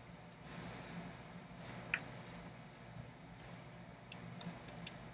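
Faint handling sounds of lashing cord being worked with pliers on a wooden kayak frame: a few small clicks and a brief squeak as the cord is pulled tight, over the steady low hum of a heater.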